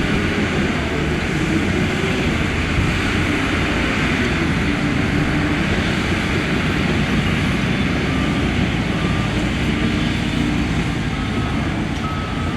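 Shantui bulldozer's diesel engine running steadily under load as it works dirt, a dense low rumble. A faint repeated beep comes in near the end.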